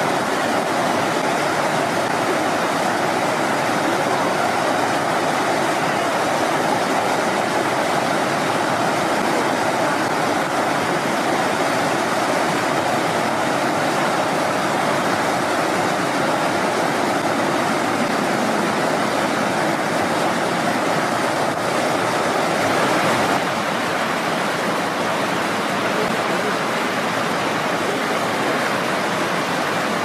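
Steady rushing of a mountain stream's water over rocks, a loud even wash of noise that drops a little about 23 seconds in.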